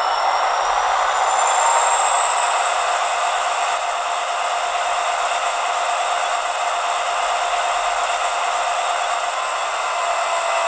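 Class 66 diesel engine thrash played by a Hornby HM7000 TXS sound decoder through its small sugar-cube speaker: the engine at full power with a high turbocharger whine that climbs over the first couple of seconds, then holds a steady pitch. The sound is thin, with little bass.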